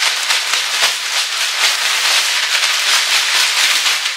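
Plastic mailer bag and plastic-wrapped items crinkling and rustling loudly as they are handled and pulled apart, a dense crackle that dies down near the end.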